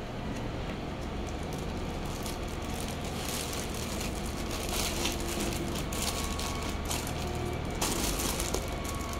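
Clear plastic bag crinkling and rustling as hands handle a stack of foam tape rolls inside it. It is loudest from about three seconds in until nearly eight seconds. A steady low hum runs underneath.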